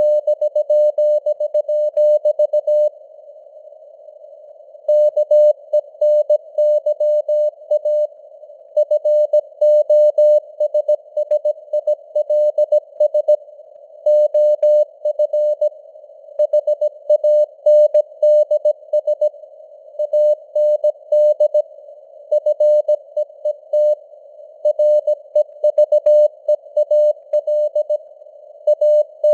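Morse code (CW) at 17 words per minute: a single mid-pitched tone keyed in dots and dashes over a narrow band of simulated radio static, as heard on an amateur radio receiver. There is a pause of about two seconds beginning about three seconds in.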